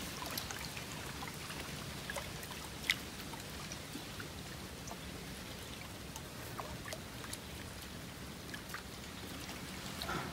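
Water trickling and dripping, with scattered light splashes, around a wooden canoe as a bamboo pole drags a bait fish along the river surface. One sharp tick stands out about three seconds in.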